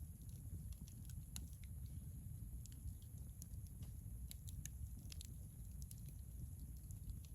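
Wood campfire crackling, with small sharp pops at irregular intervals over a steady low rumble.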